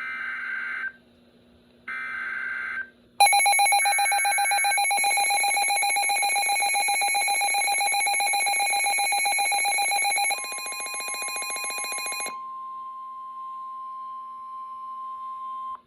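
Emergency Alert System header. It opens with short bursts of SAME data tones, the third sounding under the start of a loud, harsh buzzing alert tone that begins about three seconds in and lasts about nine seconds. A steady single-pitch weather-radio alert tone then comes in and holds for the last five seconds, cutting off just before the voice message.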